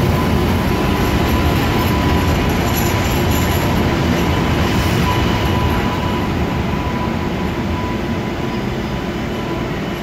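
MBTA Green Line Type 8 light-rail train rolling past along a subway platform: a steady rumble of wheels on rail with a thin whine running through it and a faint high wheel squeal in the first half. It grows slightly quieter over the last few seconds as the train moves off.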